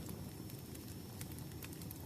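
Wood fire burning briskly: a steady low rumble of flames with scattered sharp crackles and pops, several a second.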